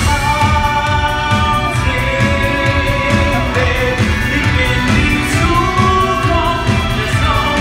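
Live stage-musical number: amplified band music with a steady beat and voices singing long held notes.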